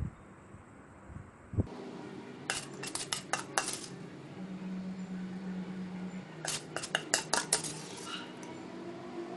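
Utensils clinking against a dish in two quick runs of clicks, with a soft thump at the start and another about one and a half seconds in.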